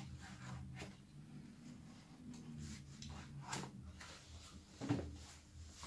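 Handling noise from a Zhiyun Smooth 4 phone gimbal being worked loose and lifted out of its moulded packing tray: soft rubbing and scraping with a few light knocks, the clearest about three and a half and five seconds in.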